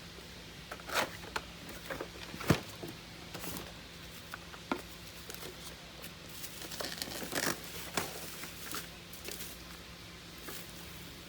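Plastic packaging crinkling and rustling as a new vacuum cleaner is unpacked and handled, with scattered clicks and knocks from its parts. The sharpest knock comes about two and a half seconds in.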